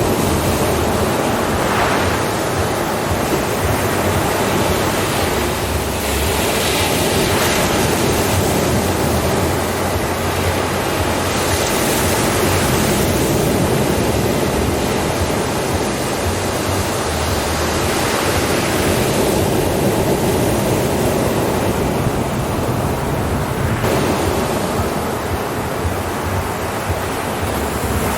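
Ocean surf: waves breaking and washing in continuously, with the hiss swelling every few seconds as each wave comes in.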